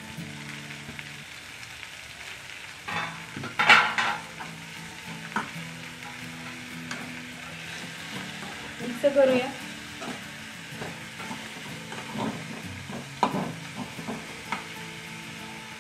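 Chopped beetroot leaves sizzling in a hot oiled non-stick pan while a steel spatula stirs and scrapes them. Several louder scrapes and clanks of the spatula against the pan come through, the strongest about four seconds in and around nine seconds.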